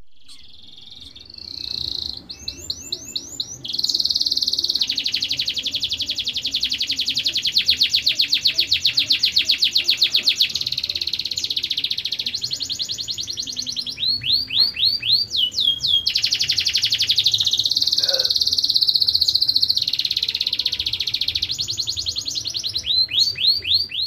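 Canary singing: long, very fast trills held on one high pitch, broken by short runs of separate sweeping whistled notes.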